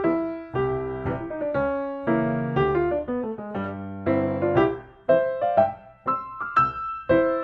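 Background piano music: a gentle melody with chords.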